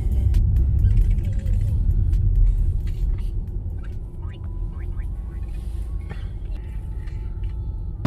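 Low road and engine rumble inside the cabin of a moving car, louder for the first three seconds and then a little quieter.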